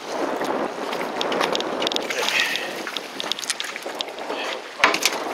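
Wind and sea-water noise around a small fishing boat, a steady rush with scattered clicks and one sharp knock about five seconds in.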